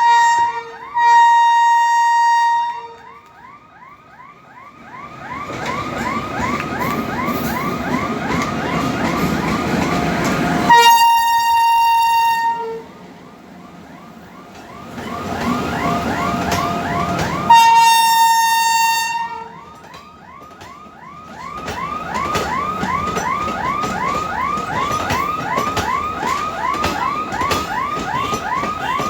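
Train locomotive horn sounding four times: a brief toot, then three blasts of about two seconds each. Between the blasts and after them comes a steady, rapidly repeating chirping sound of about three to four beats a second over a low rumble.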